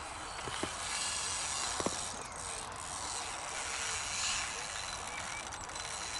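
Fixed-spool reel on a carp rod, its drag clicking rapidly and steadily as a hooked catfish pulls line off.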